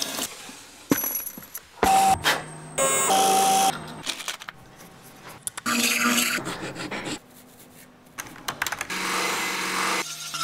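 A quick succession of clarinet-workshop sounds, each cut short: metal clicks and clinks of small clarinet keys, two brief steady ringing tones, and bursts of rubbing or tool noise.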